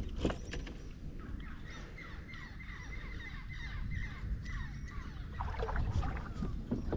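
A bird calling outdoors, a rapid series of short falling notes that lasts about four seconds.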